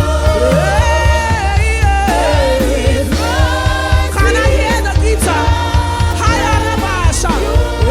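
Live gospel praise-and-worship music: voices singing a sliding melody over a band with a steady bass and a regular drum beat.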